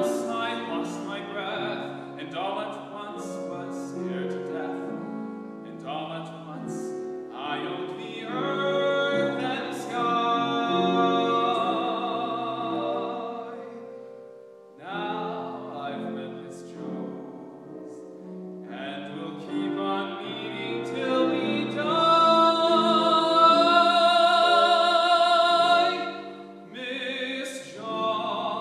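A singer with a pronounced vibrato sings a song over instrumental accompaniment. The voice breaks off briefly about halfway through, then holds one long wavering note near the end.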